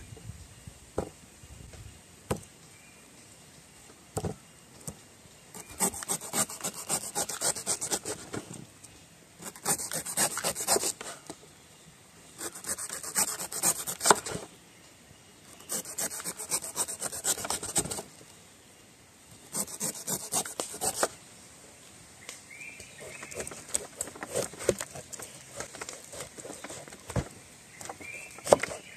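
A knife paring the thick, knobbly skin off a young jackfruit on a wooden board: five bursts of rapid scraping strokes, each a second or two long, with short pauses between. Near the end come scattered single knocks and clicks of the blade against the fruit and board.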